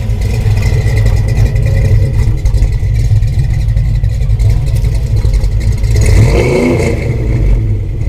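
1970 Oldsmobile 442's 455 V8, fitted with a big cam and long-tube headers, running loud and steady at the tailpipe, with a brief rise and fall in engine pitch about six seconds in.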